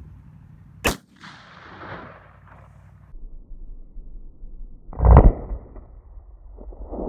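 Two rifle shots about four seconds apart: a sharp crack about a second in, followed by a fading echo, and a louder, heavier blast about five seconds in.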